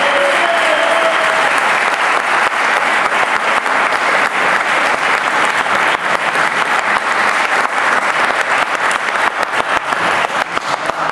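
An audience applauding steadily, the clapping thinning into more separate claps near the end.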